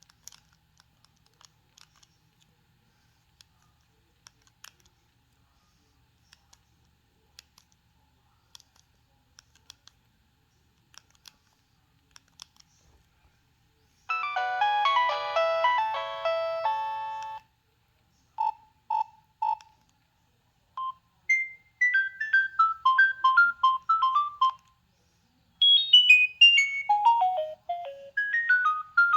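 Nokia 6610 mobile phone playing its preloaded ringtones through its own speaker. A few faint clicks come first. About halfway in, a chordal tune starts, followed after short gaps by a three-note phrase and quick falling runs of beeping notes.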